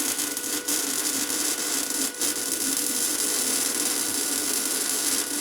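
Lincoln 110-volt wire-feed welder running flux-core wire without shielding gas, laying a weld bead: a steady, dense arc crackle that starts suddenly and holds without a break.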